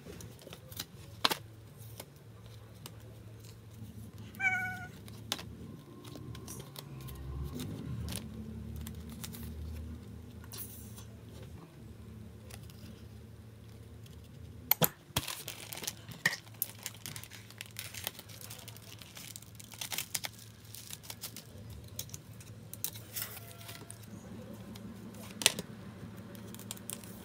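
Photocards and their plastic sleeves being handled: scattered light clicks and short rustles of card and plastic, over a low steady hum. One brief high-pitched call is heard about four seconds in.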